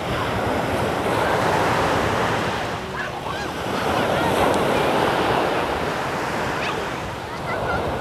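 Small sea waves breaking and washing up the sand, the surf swelling twice and easing between, with wind buffeting the microphone.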